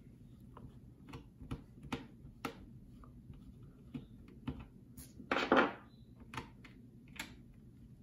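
Small clicks and scrapes of a screw being turned by hand and screwdriver into the plastic shell of a Daisy Powerline 426 BB pistol, with one louder, longer scrape about five and a half seconds in.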